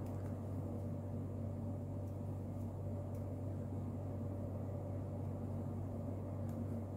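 A steady low hum with a faint hiss in the background, with a few faint ticks scattered through it.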